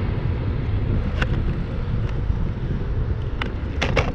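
Wind buffeting the microphone as a steady low rumble, with a few short sharp clicks about a second in and twice near the end.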